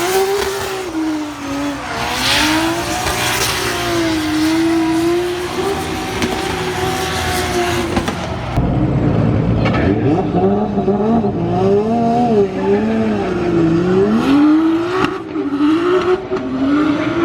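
Drift car engine revving up and down over and over as the throttle is worked through a run, with tires squealing. About eight seconds in the sound changes, as if a different car or camera takes over.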